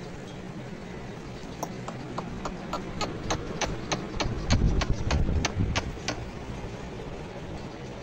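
An even run of about fifteen sharp clicks, roughly three a second, lasting a few seconds, with low thumps midway.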